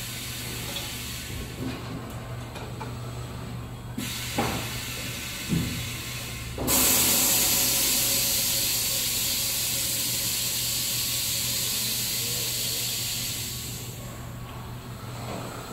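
Automated fabric-roll storage and loading machine running with a steady low hum and a couple of light clunks. About seven seconds in, a loud, even hiss starts suddenly, holds for about six seconds, then fades.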